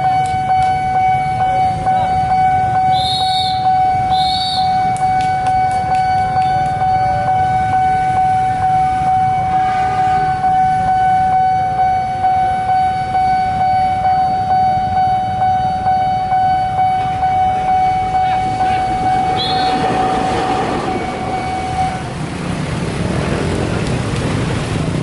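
Railway level-crossing warning siren sounding one steady tone over the loud rumble of a passing train; the siren cuts off near the end while the rumble carries on.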